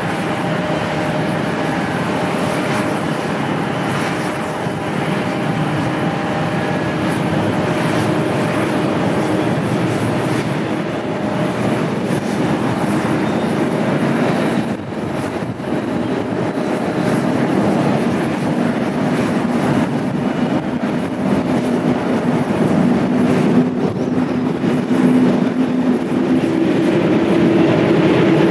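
Jet engines of a Boeing 737 MAX 8 airliner on its landing, a loud steady running noise that dips briefly about halfway through, with a tone that climbs in pitch over the last few seconds.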